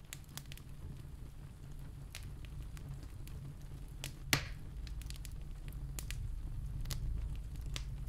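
Log fire in a fireplace crackling: scattered sharp pops over a low rumble, with one loud pop about four seconds in. It fades up over the first second or so.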